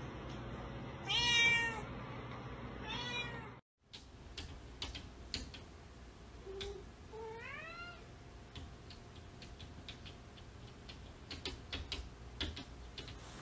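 A cat meowing twice, the first call louder. After a short gap, a cat gives a short low note followed by a rising meow, with scattered light clicks and taps as it paws at a window.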